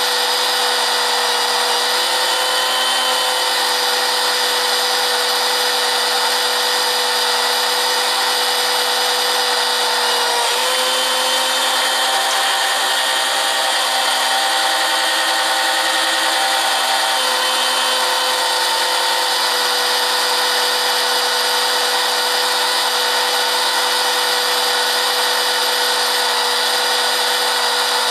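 A machine running steadily and loudly, with a constant whine whose pitch shifts slightly a few times.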